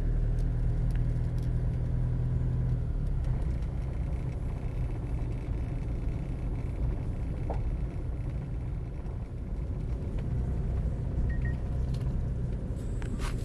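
Car driving, heard from inside the cabin: a steady low engine-and-road rumble, with the engine note shifting about three seconds in.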